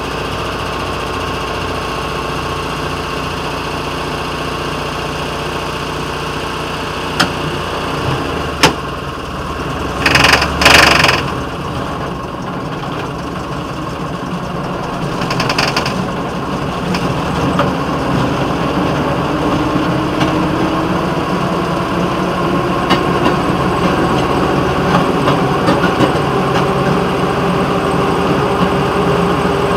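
Small rail motorcar (speeder) engine running steadily. From a little past halfway its pitch rises gradually as the car gets under way. A few sharp knocks and a couple of brief, loud rushing bursts come about a third of the way in.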